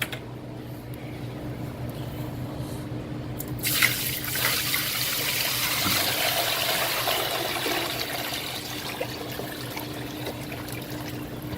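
Sanitizing water poured from a bucket into a shake machine's mix hopper: a steady rushing pour that starts about four seconds in and eases slightly near the end, over a constant low hum.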